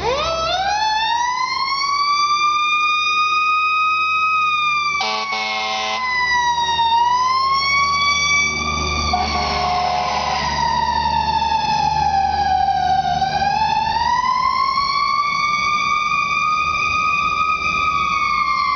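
Fire truck's mechanical siren winding up to a high steady wail, then sagging and winding back up twice as the truck passes. Two air horn blasts cut in, about five and nine seconds in, over the low rumble of the truck's engine.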